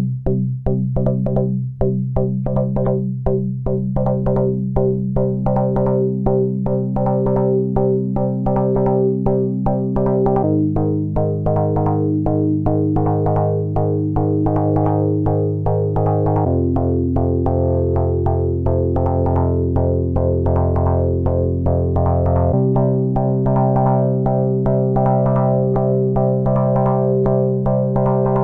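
Chords from a Korg Volca Keys fed through the Moog Rogue monosynth's filter, which the Korg SQ1 sequencer's gate triggers, so the held chords pulse in a fast rhythm. The chord changes about every six seconds, and the pulsing is strongest in the first few seconds.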